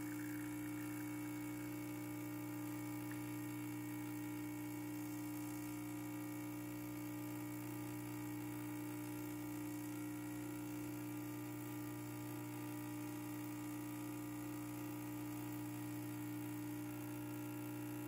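Gaggia home espresso machine's vibratory pump humming steadily while it pushes water through the puck, pulling a shot of espresso.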